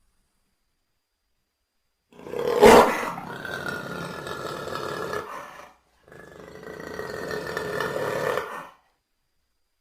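Two long roars of a big cat–like creature, played as jagupard sound effects. They start about two seconds in: the first has a sharp loud burst at its start and lasts about three and a half seconds. After a short break, a second roar of about two and a half seconds follows.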